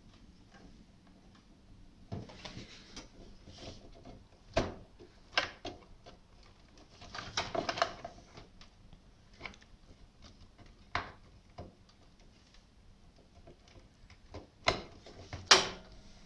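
A plastic ATX motherboard power connector and its wire bundles being handled inside a desktop PC's metal case: rustling of cables with scattered sharp clicks and knocks, and the loudest click near the end as the connector is pressed home into its socket.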